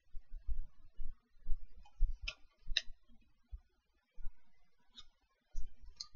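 Handling noise from turning the pages of a ring binder of DVDs: soft low bumps with several sharp clicks scattered through.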